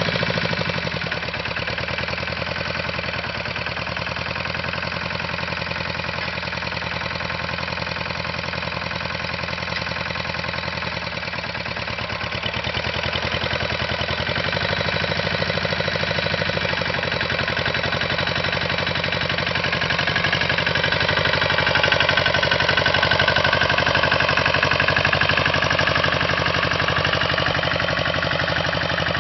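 Grillo 131 two-wheel tractor's 12 hp engine running steadily under load as it pulls a plough through the soil, with a rapid, even firing beat that grows louder past the middle.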